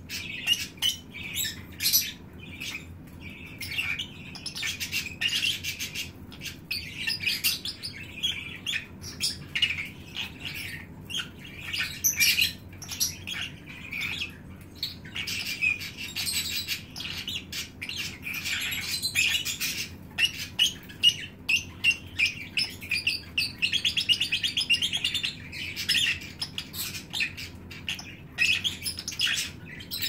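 Lovebirds chattering: rapid, high chirps and squeaks in dense runs that swell and fade, with short clicks mixed in.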